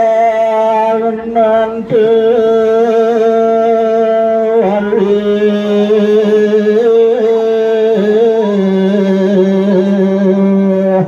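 A solo voice singing a slow Balinese chant in long held, wavering notes, breaking for breath a few times, with the melody dropping lower about halfway through.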